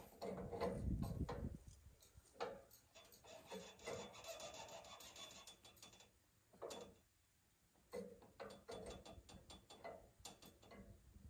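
Faint irregular clicks, knocks and rubbing scrapes of hands working at a portable sawmill with its engine off, with a short quiet pause about two-thirds of the way through.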